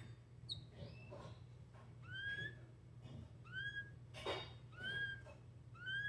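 Domestic canary giving a repeated whistled call: four short arched notes, each rising then falling, about a second and a half apart, starting about two seconds in. A few soft clicks sound between the notes over a low steady hum.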